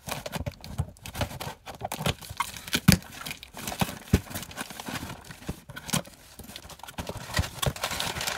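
Cardboard shipping box being opened: scissors cutting through the tape, then the box flaps and plastic packaging are handled and crinkled, with frequent knocks and taps against the cardboard. The sharpest knocks come about three and four seconds in.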